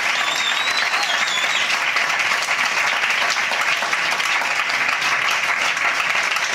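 Audience applauding steadily at the end of a song, with a high whistle over the clapping in the first second and a half.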